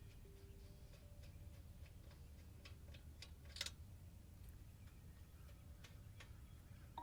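Faint, irregular ticking clicks over near silence, with one louder click about three and a half seconds in.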